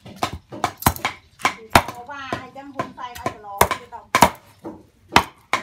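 A meat cleaver chopping raw chicken pieces on a round wooden chopping block: a quick, uneven run of sharp chops, about two to three a second.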